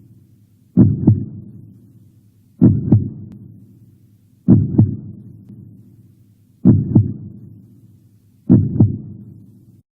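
Heartbeat sound effect: five slow double thumps (lub-dub), about two seconds apart, each fading out.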